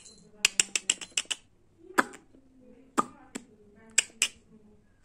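Sharp clicking and light jingling from a kitten's collar necklace as it paws and bites at it. A quick run of about six clicks comes first, then single clicks roughly a second apart.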